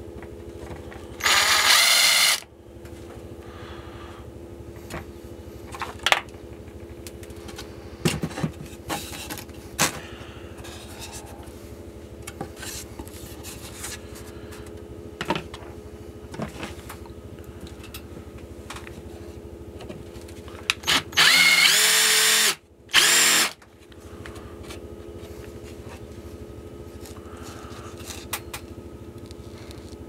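Cordless drill with a countersink bit running in short bursts, chamfering the edge of a drilled hole in 6 mm plywood. The first burst is about a second long, near the start. Two more follow about 21 seconds in, one about a second and a half long and one about half a second, with light knocks and handling noises between them.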